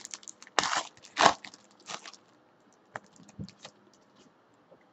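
Hands handling a trading-card pack and its cards: short crackles and rustles of the wrapper and cards in the first two seconds, then only a few faint clicks as the cards are held and flicked.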